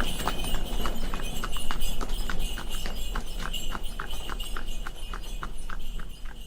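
Horse cart passing and moving away: the horse's hooves clip-clop in a steady rhythm of about four strikes a second, with bells ringing steadily. Both fade as the cart recedes.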